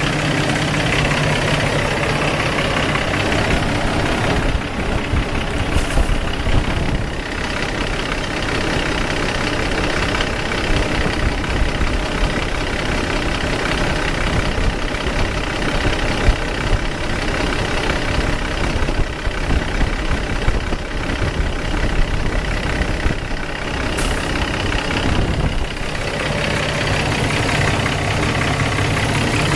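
Cummins ISX diesel engine idling, run to check the cooling system after an EGR cooler replacement and coolant refill. The even drone turns rougher and less regular for most of the middle, then settles back near the end.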